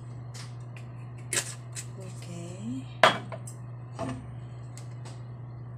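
Scattered sharp clicks and knocks of kitchen handling around a frying pan and an oil bottle, the loudest about three seconds in, over a steady low hum.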